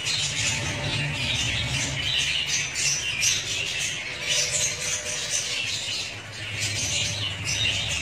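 A flock of lovebirds chattering and squawking, many high-pitched calls overlapping without a break.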